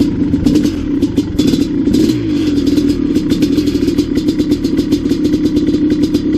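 Dirt bike engine idling, with a short throttle blip about one and a half seconds in that falls back to idle.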